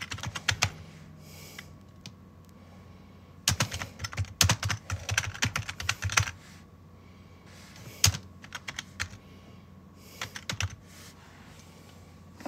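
Typing on a computer keyboard in irregular runs of key clicks: a short burst at the start, a long stretch of fast typing a few seconds in, then a single hard keystroke and a few brief bursts later on.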